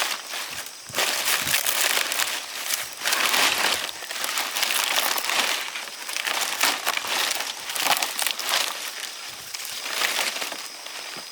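Dry rice stalks rustling and crunching in quick, irregular strokes as rice is harvested by hand.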